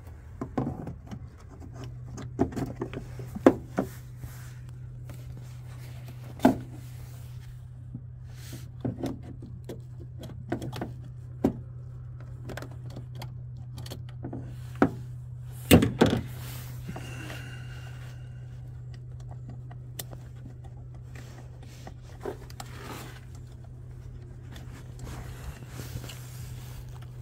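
A steady low electrical buzz from the car while it is under test for a parasitic battery drain, with scattered sharp clicks and knocks from hands working at the battery terminal, fuse box and multimeter leads.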